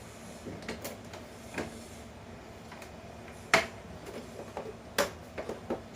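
Scattered sharp clicks and knocks of hard plastic air-conditioner parts being handled and fitted together, the loudest about three and a half seconds in and several quick ones near the end.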